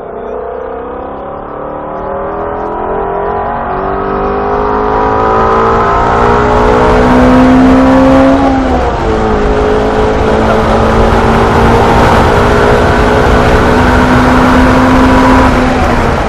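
Ford Mustang Shelby GT350's 5.2-litre flat-plane-crank V8 under hard acceleration, its note climbing for about eight seconds. The pitch drops at an upshift, then the engine pulls steadily again.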